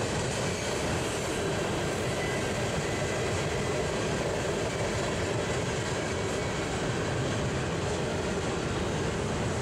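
Freight train cars rolling past on steel rails, a steady rumble and rush of wheels on track with no breaks.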